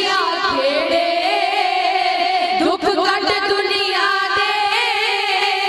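A woman singing a Punjabi dhadi ballad through a PA microphone, her voice wavering and ornamented in pitch, over a held sarangi line.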